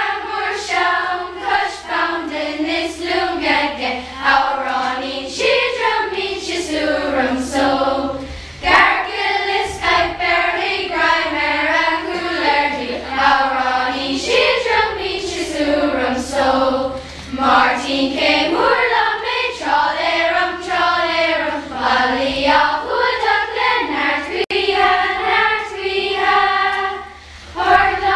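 A children's school choir singing a song together, with short breaks between phrases.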